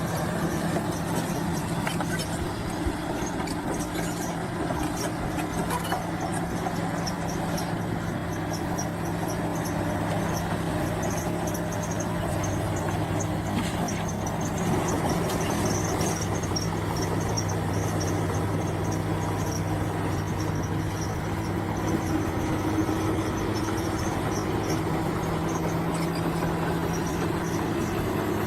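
A bulldozer's diesel engine running at a steady pitch, with faint high squeaking and a few light clicks over it.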